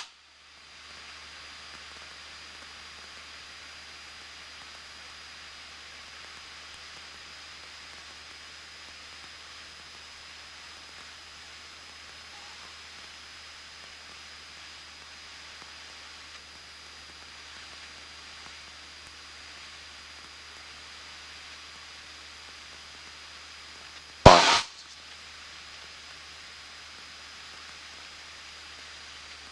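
Steady hiss from the Cessna 172N's cockpit intercom audio feed, with no voices. About 24 seconds in there is a single short, loud burst, like a crackle or click on the line.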